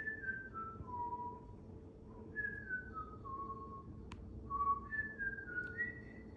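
Someone whistling a tune: short held notes stepping downward in falling phrases, each phrase starting high again. A single sharp click about four seconds in.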